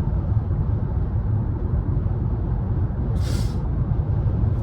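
Steady low road and engine rumble inside a moving car's cabin, with a brief hiss about three seconds in.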